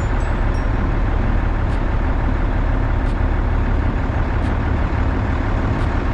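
Heavy vehicle engine running steadily, a constant deep rumble with no change in speed.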